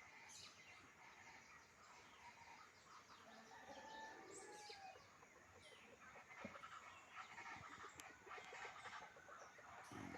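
Faint morning chorus of wild birds: many short chirps and calls overlapping, with clucking calls of fowl among them.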